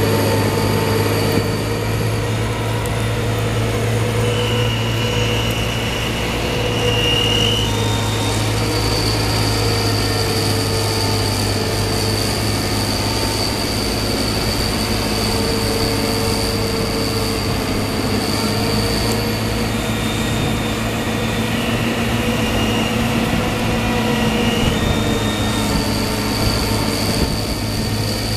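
John Deere 2264 combine harvester running: a steady low diesel hum with several high machinery whines from its drives that come and go.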